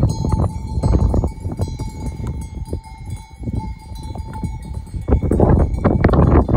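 Bells on a walking flock of sheep clinking and ringing steadily, under a low rumbling noise that swells about five seconds in.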